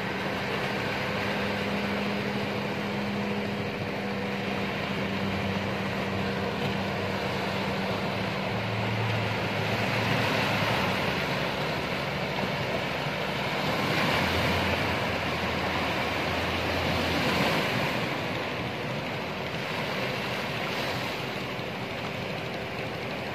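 Ocean surf breaking and washing, swelling a few times, with the steady low hum of outboard motors on small wooden outrigger fishing boats heading out through the waves.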